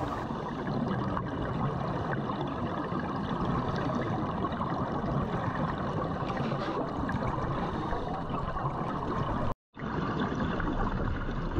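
Steady underwater water noise as heard through a diving camera's housing, an even hiss and rush with no distinct events. It drops out for a moment near the end.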